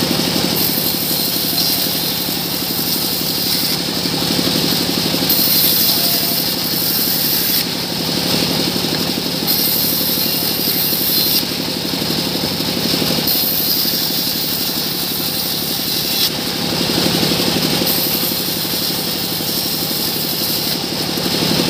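Band sawmill running steadily while its blade rips a small mahogany log lengthwise in repeated passes; the cutting hiss swells and falls away every few seconds as each pass goes through the wood.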